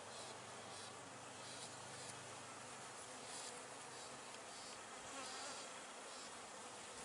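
Steady buzzing of honey bees around an open hive, the workers crowding a newly released Italian queen.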